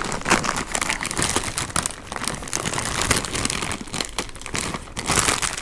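Clear plastic snack bag crinkling and rustling in irregular crackles as it is worked open by hand.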